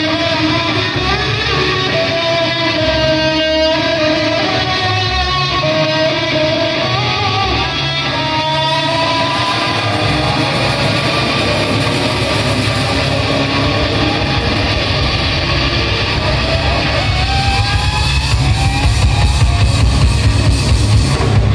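Live electric guitar through stage amplifiers: long held notes that bend in pitch over a low sustained drone, getting louder near the end.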